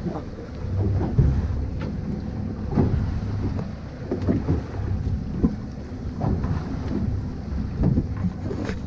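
Low, steady rumble on a fishing boat at sea, with wind on the microphone and irregular dull knocks.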